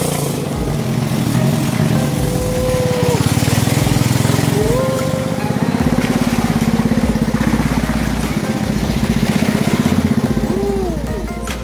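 A small boat engine runs loudly and steadily at speed, driving a wooden longboat along a narrow forest channel. A few short gliding tones sound over the engine.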